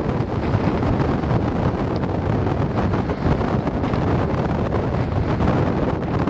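Steady wind buffeting the microphone aboard a sailing yacht at sea, a continuous low rumble.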